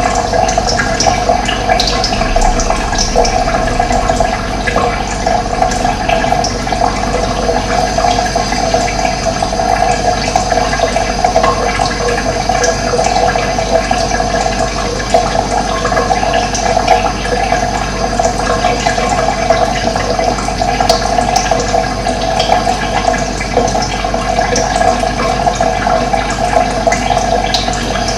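Steady rush of running water, with faint short bird chirps now and then.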